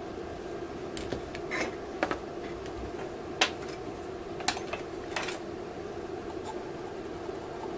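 Scattered small clicks and taps as a soldering iron and hand tools touch and shift a circuit board on a workbench, about seven in all, the loudest about three and a half seconds in, over a steady background hum.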